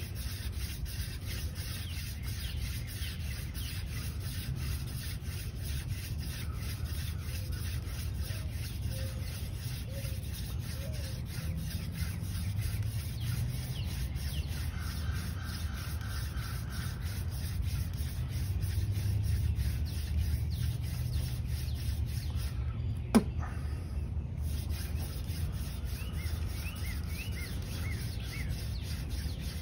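Hand-drill fire making: a shortened horseweed spindle spun back and forth between the palms and drilling into a tulip poplar fireboard, giving a steady, fast, rhythmic rubbing of wood on wood as the friction builds toward an ember. A single sharp click about 23 seconds in.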